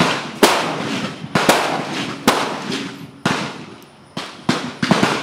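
Rifle shots at an outdoor shooting range: about nine sharp cracks in five seconds, irregularly spaced, each trailing off in an echo. The pace is too quick for one shooter's aimed fire, so several rifles on the firing line are going off.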